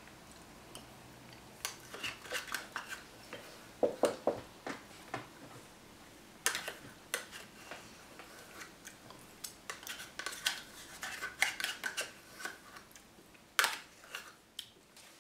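Metal spoon clinking and scraping against a small dish or container in irregular, scattered clicks and short scrapes.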